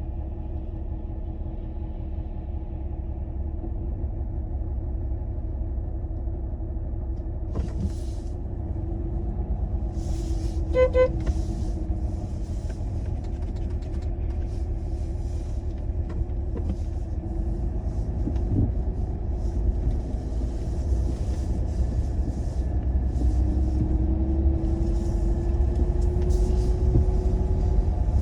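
Car running with a steady low engine and road rumble, the engine note rising for a few seconds near the end. A short beep sounds about eleven seconds in.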